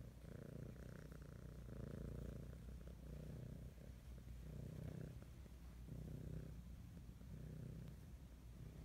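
Domestic cat purring close up. The purr swells and eases with each breath, about once a second.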